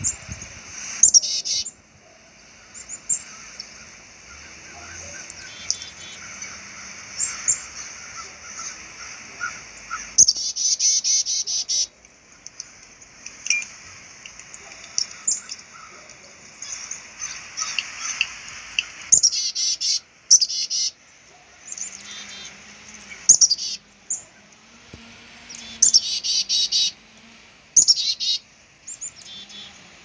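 Black-capped chickadees calling from the treetops: high chirps and quick runs of repeated notes, coming in bursts every few seconds.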